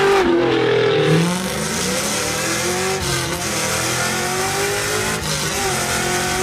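Dodge V8 engine rumbling, its pitch dropping in the first second, then rising again and swelling up and down a few times as it is revved.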